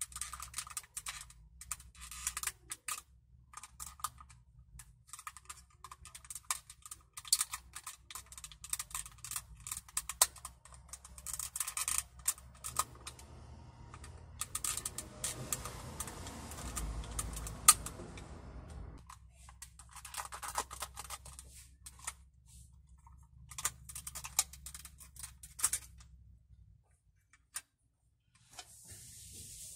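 Irregular small plastic clicks, taps and scrapes as a flat screwdriver pries open the plastic housing of a 2012 Honda CR-V passenger-side power window switch, releasing its side latches. A stretch of rustling handling comes near the middle.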